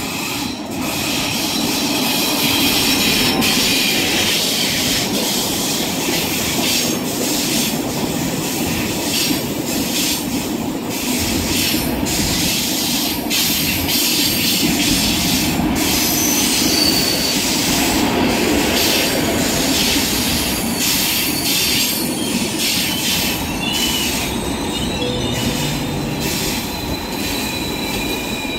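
EU07A electric locomotive and its Intercity coaches rolling into the platform. The wheels clack over the rail joints and give short, high squeals as the train runs in to stop.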